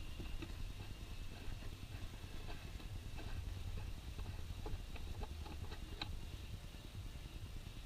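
Faint, irregular clicks and light metallic ticks of hand tools being worked under a vehicle, one sharper tick about six seconds in, over a steady low rumble.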